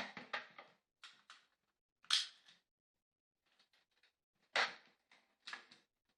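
Nerf blaster being handled and fired: a string of sharp clicks and knocks about a second apart, the loudest at the start, about two seconds in and near the middle.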